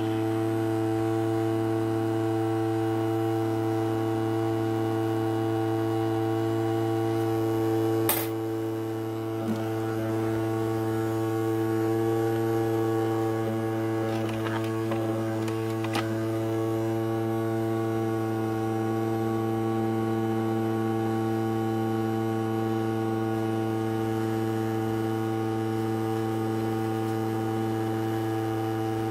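Ultrasonic cleaner running, a steady buzzing hum with a water-filled tank. Two short clicks, one about eight seconds in and a fainter one about sixteen seconds in.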